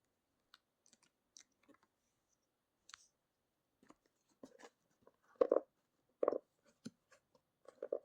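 Scattered light clicks and rustles of small objects being handled, with two louder brief knocks a little past halfway.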